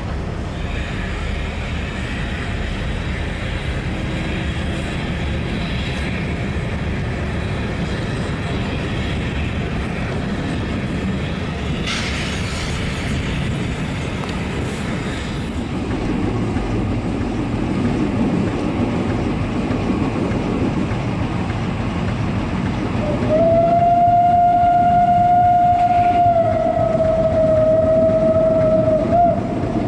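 Steam train hauled by a 1919 Krauss-built 0-8-0 tank locomotive rolling steadily along the track. Near the end the locomotive's steam whistle sounds one long blast of about six seconds, dipping slightly in pitch partway through.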